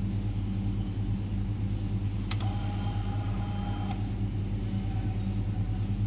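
Steady low engine-like rumble, with a short whine lasting about a second and a half from a little over two seconds in, which starts and stops with a click.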